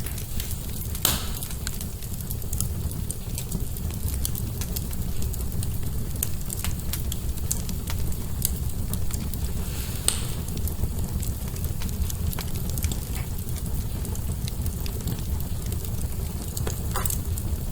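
Wood fire burning in a fireplace: a steady low rumble of flames with frequent small crackles and a few louder pops, one about a second in, one midway and one near the end.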